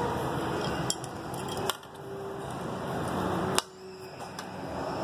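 A metal spoon clinking against a bowl: three short, sharp clinks spread over a few seconds, over a steady background hum.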